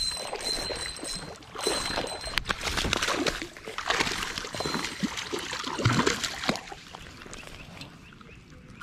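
A small hooked fish splashing and thrashing at the water's surface as it is reeled in and lifted out onto the bank; the splashing dies away near the end.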